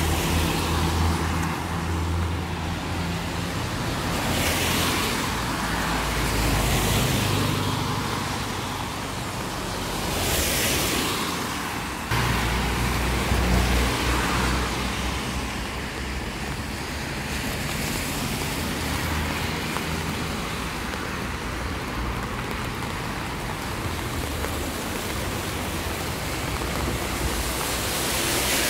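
Traffic on a rain-soaked street: cars, a truck and a bus pass one after another with tyres hissing on the wet road, over a steady hiss of rain.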